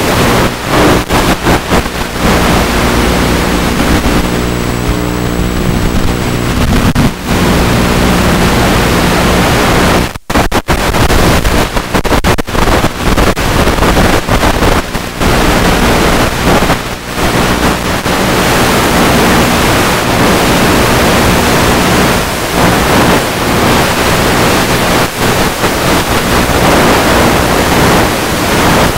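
Loud wind rush over the onboard camera microphone of a Multiplex EasyStar 2 RC plane in flight, with the steady hum of its electric motor and propeller beneath. The sound keeps breaking off for split seconds, most deeply about ten seconds in.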